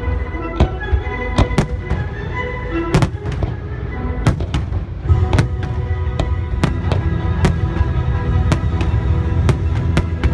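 Aerial firework shells bursting in a string of sharp bangs, roughly one to two a second, over music playing throughout.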